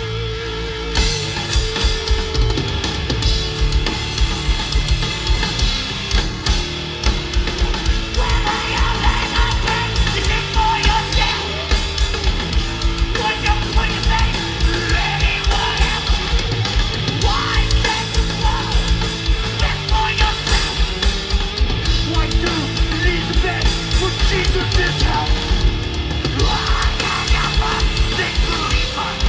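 Hardcore punk band playing live: fast, pounding drums, distorted guitar and bass, with shouted vocals. The drums come in about a second in, after a held guitar note.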